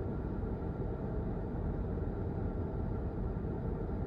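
Steady low rumble of a car's running engine and cabin, heard from inside the car.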